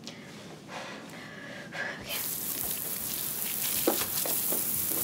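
Lawn sprinkler's pop-up spray head hissing steadily as it sprays water over grass, starting suddenly about two seconds in after quiet room tone.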